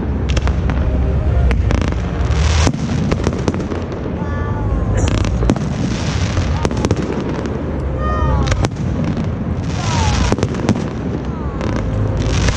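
Fireworks display going off: a dense run of bangs and crackles, with a few short whistles gliding in pitch around the middle and towards the end.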